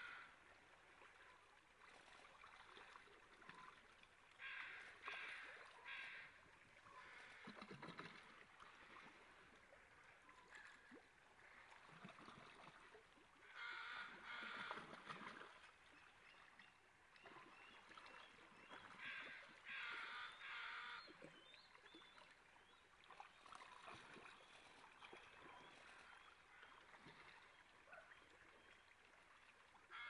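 Faint flow of a shallow river with splashing as a coastal wolf wades and lunges after pink salmon. Birds call in short groups of a few calls, three times.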